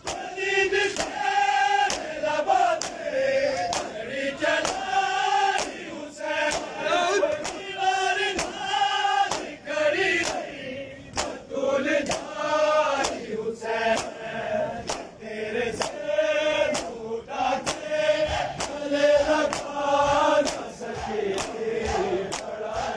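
A crowd of men chanting a noha in unison, with the sharp slaps of hands striking bare chests (matam) keeping a steady rhythm under the voices.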